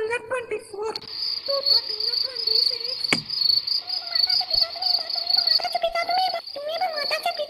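Crickets chirping steadily as a night ambience. A soft wavering sung tone fades out in the first second, and from about four seconds in a soft wavering voice hums a tune under the crickets. A single sharp click sounds about three seconds in.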